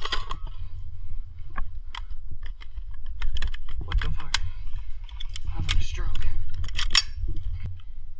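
Irregular sharp clicks and light metallic clinking of airsoft gun and gear handling, coming in bunches around the middle and toward the end, over a steady low rumble of movement on the microphone.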